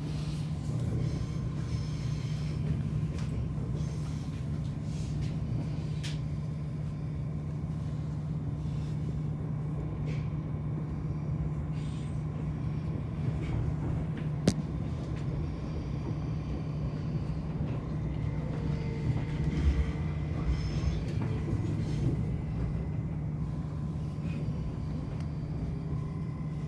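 Cabin noise of an SOB Traverso (Stadler FLIRT) electric train rolling slowly into a terminus station: a steady low running hum with faint steady whines. Clicks and knocks from the wheels over rail joints and points come throughout, with one sharp click about halfway through and a cluster of louder knocks a few seconds later.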